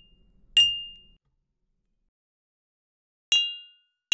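A mug struck once by a thin rod, ringing with a high, quickly fading ding about half a second in. After about two seconds of silence, a computer-synthesized strike on the same mug rings out with a similar ding of several tones, cleaner and without room noise.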